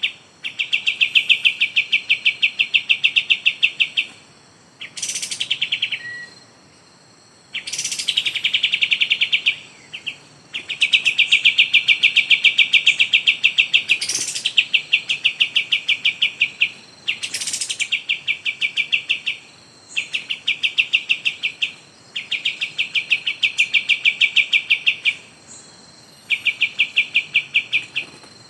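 Bird calls in repeated bursts of a very fast, shrill chirping trill, each burst a couple of seconds long with short breaks between. This is the 'kapas tembak' call used to lure wild birds in bird trapping.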